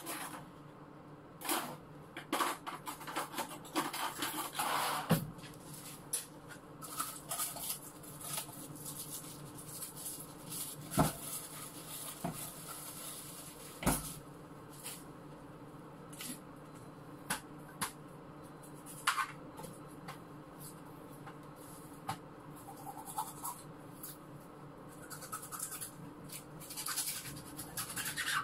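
Washing up at a kitchen sink: scattered clinks and knocks of dishes and pans being handled, with scratchy scrubbing in between, over a faint steady hum.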